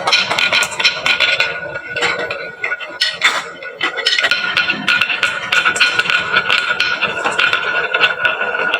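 Many marbles rolling and clattering down a wooden HABA marble run: a dense, continuous patter of small clicks and knocks, with a brief lull about two to three seconds in.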